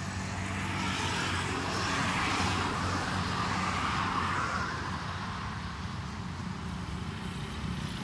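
Road traffic: a vehicle passing on the road, its noise swelling over the first couple of seconds and fading about halfway through, over a steady low engine hum.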